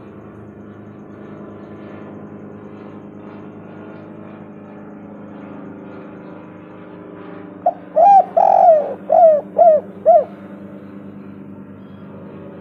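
Spotted dove cooing: a burst of about six loud, rolling coo notes in quick succession, one drawn out longer, about two-thirds of the way in. A low steady hum runs underneath.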